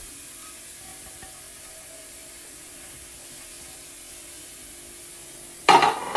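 Faint steady room tone with a low hum, then near the end a short loud scrape of a metal spoon in a glass mixing bowl of samosa filling.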